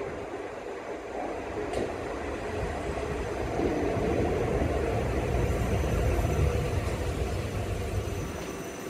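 Class 334 Juniper three-car electric multiple unit pulling into the platform at low speed: a steady rumble of wheels and running gear that grows louder as the cab passes close by, peaks a few seconds in, then eases off.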